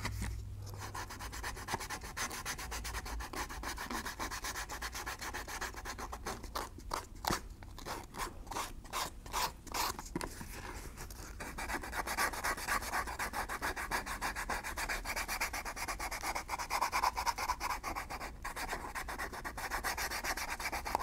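400-grit wet-or-dry sandpaper rubbed by hand along the edge of a stitched leather holster in rapid back-and-forth strokes, with a few short pauses midway, smoothing the bevelled edge and taking off squeezed-out cement.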